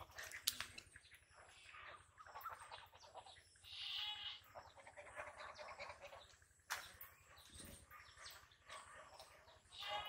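Domestic ducks in a flock giving faint, scattered short calls, with two sharp clicks, one about half a second in and one past the middle.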